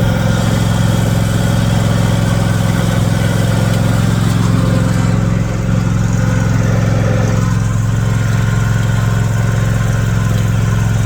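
Riding lawn mower's engine running steadily at a constant speed as the mower is driven along.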